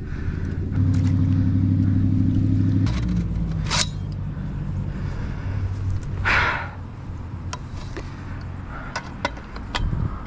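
A motor engine running with a steady low hum, loudest for about two seconds near the start and then dropping away. Two brief swishing noises follow, around the middle.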